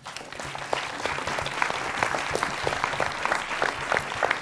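Audience applauding: the clapping swells up within the first moment and then holds steady, many separate claps overlapping.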